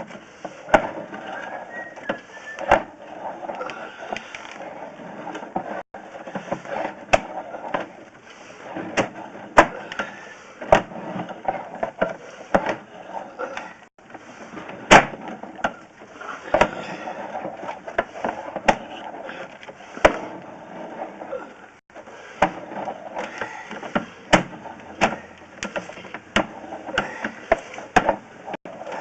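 Irregular sharp knocks and clatter over a continuous rough scraping noise.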